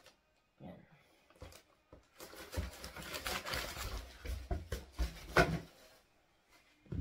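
Tissue paper rustling and crinkling as it is pulled out of a new sneaker and handled, with a few soft knocks from the shoe and cardboard box. The handling noise starts about two seconds in and stops near the end.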